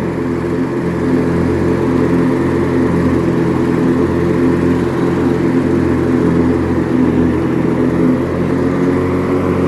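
White LT 1650 riding mower's Briggs & Stratton opposed-twin engine running steadily while mowing, its exhaust through an intact muffler.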